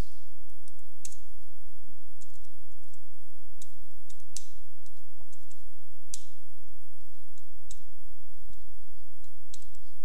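Computer keyboard being typed on in short, sparse keystrokes, single sharp key clicks spaced irregularly apart.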